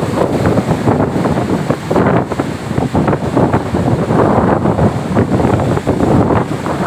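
Strong wind buffeting the microphone, over the rush of heavy surf.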